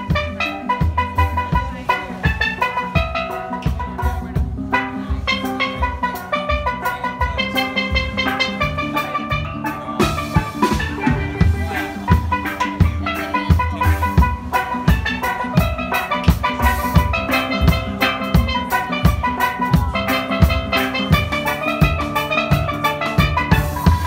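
Steel drum band playing live: many ringing steel-pan notes in a quick melody over a steady, regular beat.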